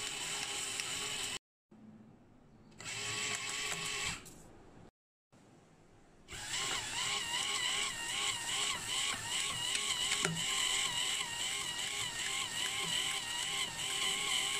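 Home-built banknote counting machine running, its motor-driven rubber rollers feeding banknotes: a whine that wavers up and down in a steady rhythm. It cuts out briefly twice in the first few seconds, is quieter in between, and is louder from about six seconds in.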